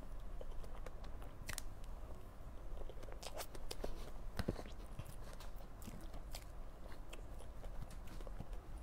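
Close-up mouth sounds of a person eating soft cream cake from a spoon: quiet chewing and wet smacks, with scattered short clicks.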